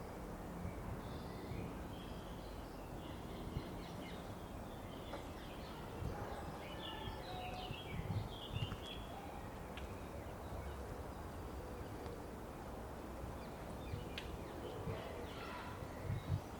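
Afternoon cemetery ambience: songbirds chirping and calling on and off, busiest in the middle and near the end, over a steady low background rumble.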